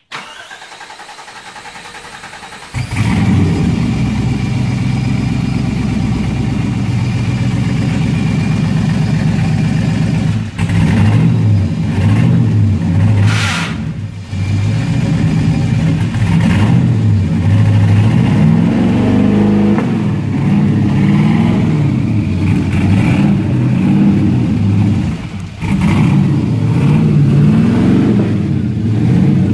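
The kit car's turbocharged engine starts about three seconds in, then runs loudly and is revved up and down again and again, with a few brief lifts off the throttle.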